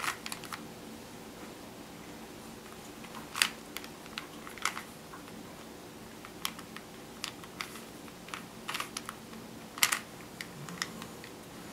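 Plastic Rubik's Cube being turned by hand: irregular clicking and clacking as its layers are twisted, a few clicks at a time with short pauses between.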